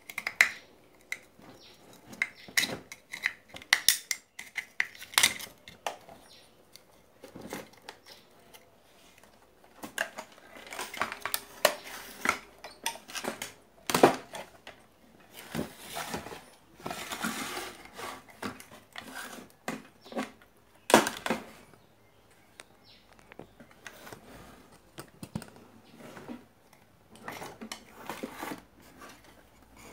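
Hands and a soldering iron knocking, clicking and scraping against a CRT TV's circuit board as it is worked on and shifted about. Irregular sharp knocks, with stretches of scraping about ten and sixteen seconds in.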